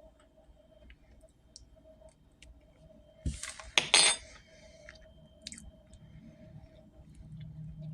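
Cutlery clinking and clattering on a dinner plate: a short cluster of sharp knocks about three to four seconds in, over a faint steady hum.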